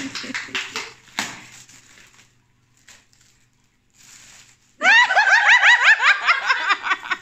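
Foil gift wrap crinkling and tearing for about the first second. Then, after a quiet gap, loud, high-pitched laughter starts a little past the middle as a quick run of rising squeals.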